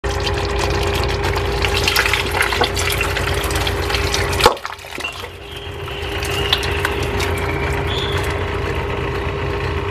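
Thick red sauce poured and scraped from a pan onto fried fish pieces in an enamel pot: wet sloshing with small scrapes and clicks, then a sharp knock about four and a half seconds in, after which it goes quieter. A steady hum runs underneath.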